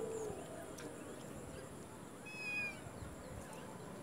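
A kitten gives one short meow about two seconds in, falling slightly in pitch.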